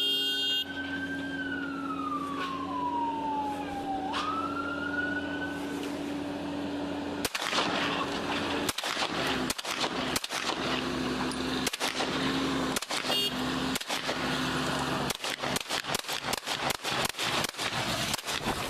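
Police siren wailing, its pitch sliding slowly down and then back up, over a steady engine hum. About seven seconds in, a loud rushing noise takes over, broken by many short dropouts.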